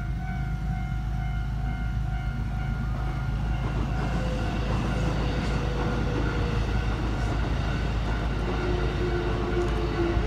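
Keikyu electric train running on the rails with a continuous low rumble. The noise of the wheels grows about four seconds in, and a falling motor whine comes in near the end. A steady high-pitched hum is heard in the first few seconds.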